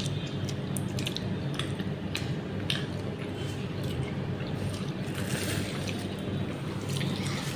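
A steady low hum throughout, with scattered small clicks and soft squishy handling sounds as food is picked at on a plate.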